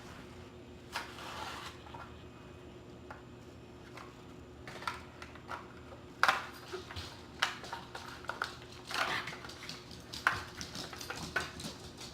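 Blister pack of a Hot Wheels die-cast toy car being pried and torn open by hand: irregular crinkles, scrapes and sharp clicks of plastic and card, the loudest about six seconds in.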